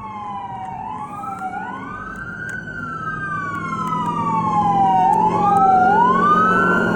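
Emergency vehicle siren wailing, two tones sliding slowly up and down out of step with each other, over a low vehicle rumble; it grows louder toward the end and then begins to fade as it passes.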